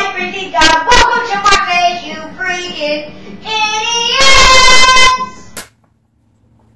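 A child's high-pitched voice loudly shouting and singing, very loud and near clipping, with the longest and loudest shriek a little past four seconds in; it cuts off suddenly about five and a half seconds in.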